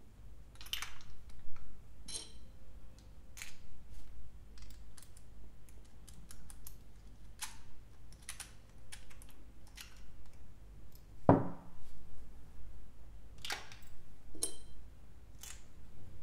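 Small machined aluminium parts of a RAMA WORKS NEMO collectible robot clicking and tapping together as they are handled and fitted, close up. Twice a light metallic clink rings briefly, and about eleven seconds in comes a duller, heavier knock.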